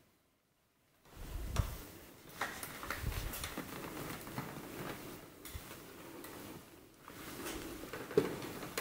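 Close rustling of a cat's fur under a stroking hand, with light clicks and a few soft knocks of handling, starting about a second in.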